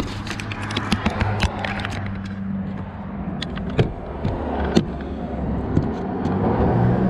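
Scattered clicks and knocks from a camera being handled and repositioned, over a steady low hum like an engine running.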